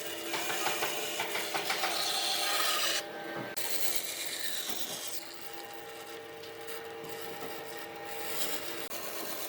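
Wood being worked by hand with an abrasive or rasping tool, a steady scraping rub. About three seconds in it cuts abruptly to a quieter, duller rubbing.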